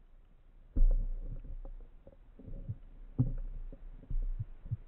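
Muffled low thumps and knocks heard underwater through a camera housing mounted on a speargun, as the gun is moved along. They come irregularly, about half a dozen, with the loudest about a second in.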